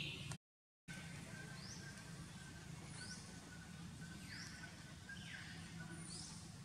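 A bird calling: short rising whistled notes repeated about every second and a half, with a couple of falling notes in between, over a faint steady low hum.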